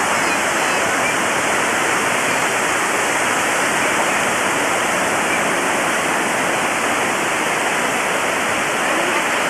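Steady rushing wash of ocean surf, an even roar that neither swells nor pauses.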